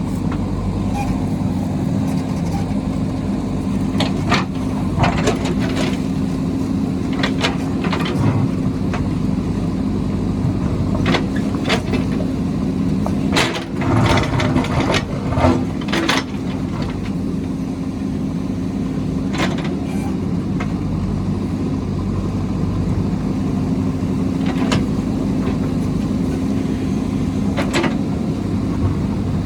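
Diesel engine of a JCB backhoe loader running steadily under work, with scattered sharp knocks and clanks through it. About thirteen to sixteen seconds in, the sound grows busier and shifts in pitch for a few seconds.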